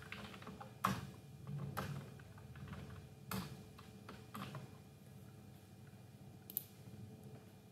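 Typing on a computer keyboard: irregular key clicks, with a few sharper strokes standing out about a second in and again after three seconds.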